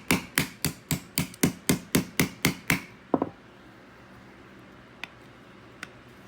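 Small hammer tapping a trigger pin into an M&P 2.0 pistol frame, sharp even taps about four a second, ending with a quick double tap about three seconds in.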